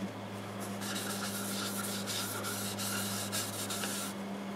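Cloth in a gloved hand rubbing shellac-based sanding sealer onto the outside of a small mimosa wood bowl mounted on a lathe: a steady wiping sound. A steady low motor hum runs under it.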